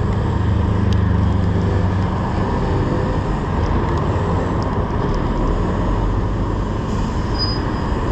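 Steady rush of wind on the microphone of a moving bicycle, mixed with city traffic: cars and a bus running in the lanes alongside. A short, high squeal comes near the end.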